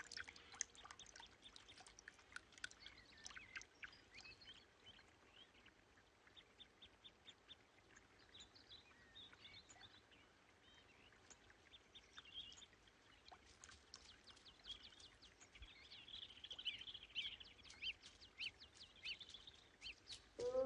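Faint outdoor nature sound with scattered short bird chirps and calls, busier toward the end.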